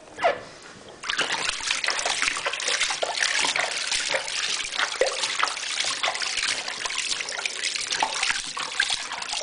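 Bathwater splashing and trickling in a plastic baby bathtub as hands wash a newborn, starting about a second in and going on as a busy, steady patter of small splashes.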